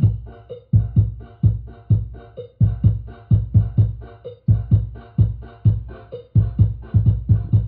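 Bass-heavy electronic music with a fast kick-drum beat, about three thumps a second, played from a phone through a homemade mono power amplifier with two pairs of 2N3055/MJ2955 output transistors into a 6-inch speaker. The punchy bass makes the speaker cone move.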